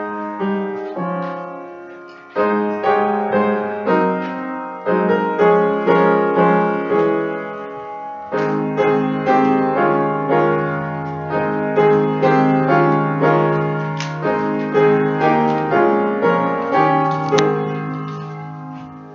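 Piano playing slow closing music, its notes struck about twice a second, ending on a chord that dies away near the end.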